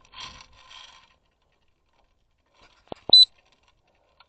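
A short, high electronic beep, just after two sharp clicks, about three seconds in.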